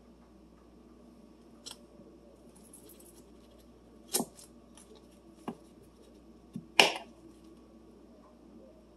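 A few sharp clicks and knocks of a knife as butter is sliced and set on top of a cake in a metal baking pan, with the loudest knock about seven seconds in.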